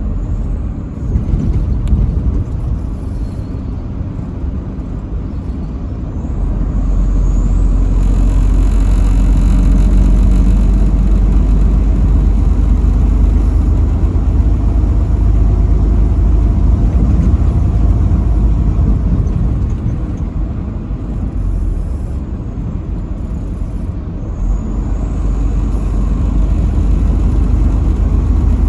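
Truck driving on an interstate: a steady low rumble of engine and road noise that swells louder several seconds in, eases off later, then builds again near the end.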